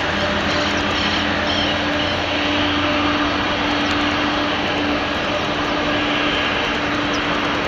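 Four General Electric CF6 turbofan engines of a Qantas Boeing 747-400ER running as the jet rolls down the runway, heard from across the airfield: a steady rumble with a steady hum through it.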